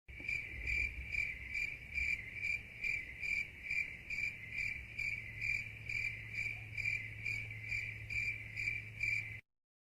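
Cricket chirping sound effect, the stock clip used for an awkward silence: even chirps about two a second over a faint low hum, cutting off suddenly near the end.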